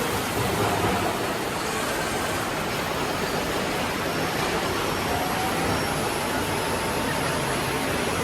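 Woodmaster 4-axis CNC wood router running, its spindle finish-milling a wooden chair or table leg: a steady, dense cutting and machine noise, with a faint whine rising slowly about five seconds in.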